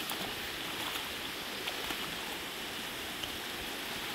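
Shallow creek flowing over rocks, a steady rush of water, with a few light splashes from wading feet.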